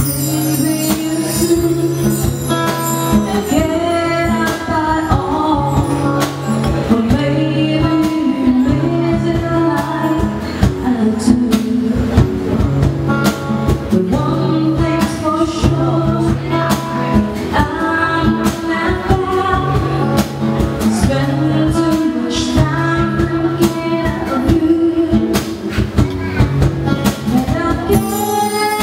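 Live acoustic band: a woman sings into a microphone over strummed acoustic guitar and hand percussion, with steady low notes underneath and a regular beat.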